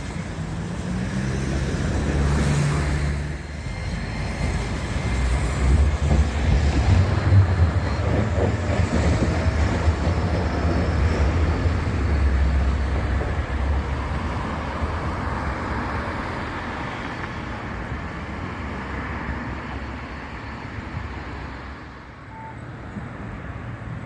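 Street traffic: the low rumble of passing road vehicles' engines builds over the first few seconds, stays loudest through the middle, and slowly fades toward the end.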